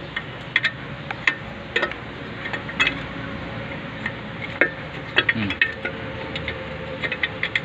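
Irregular metallic clicks and clinks from a wrench working the nuts on the bolts that jack a worn truck wheel bearing off its spindle.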